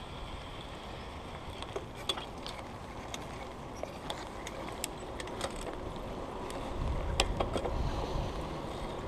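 Bicycle being ridden, with scattered clicks and rattles from the bike and a steady rush of wind on the microphone; the low wind rumble grows louder about seven seconds in as the bike picks up speed.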